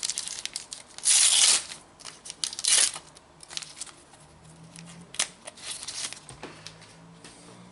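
A foil trading-card packet being torn open, then the cards rustling and clicking as they are handled. The loudest tearing comes about a second in, with a shorter rip near three seconds.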